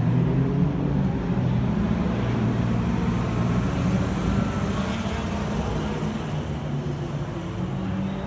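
BMW 3.0 CSL race car's straight-six engine idling steadily, a low even rumble from its side exhaust.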